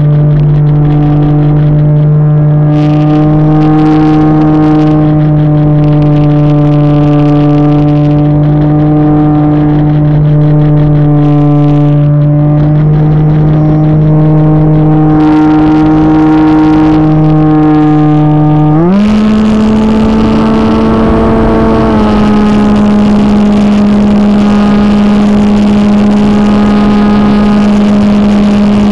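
RC model airplane's motor and propeller heard from the plane's onboard camera, a steady droning hum with rushes of wind noise. About two-thirds of the way through, the pitch quickly steps up and holds higher as the throttle is opened.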